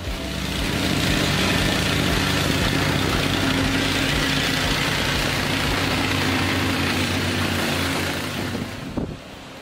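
Heavyweight plate compactor running as it is pushed over a Type 1 MOT crushed-stone sub-base, compacting it. Its steady engine drone starts just after the beginning and dies down about a second before the end.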